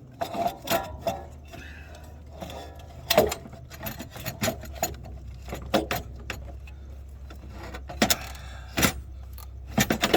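Scattered metallic clinks and knocks as a turbocharger is worked loose and eased out of a Powerstroke 6.0 diesel engine bay, over a steady low hum.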